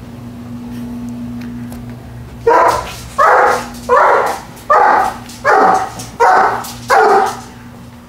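Irish Wolfhound barking in excitement: seven barks in a steady run, about one every 0.7 seconds, starting some two and a half seconds in. Before the barks there is only a steady low hum.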